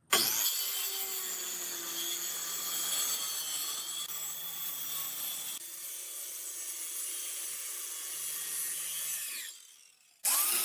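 An electric power tool working wood: it starts abruptly, runs steadily for about nine seconds, winds down, then starts again just before the end.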